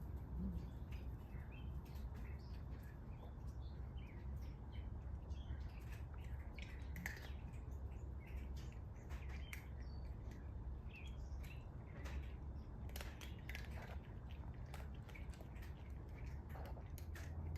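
Birds chirping, short scattered chirps throughout, over a steady low hum. Near the end the low hum gets louder.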